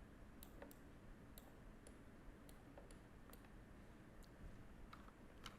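About ten faint, irregularly spaced clicks of a computer mouse, heard against near silence.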